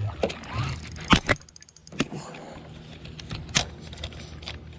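Scattered knocks and clatter of handling in a small fishing boat, the loudest about a second in, over a low steady hum.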